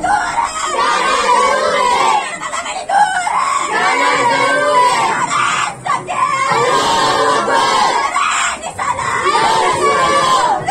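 A crowd of men and boys shouting together in chant-like phrases, with short breaks between phrases every few seconds.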